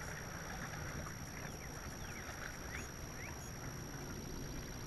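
A few short, quick bird chirps over a steady low rumble of water and wind around a bass boat, with a constant high-pitched whine.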